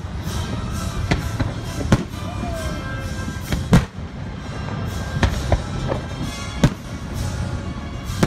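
Aerial fireworks bursting: a run of about eight sharp booms and cracks at irregular intervals, the loudest about two seconds in and just before the four-second mark, over a continuous low rumble.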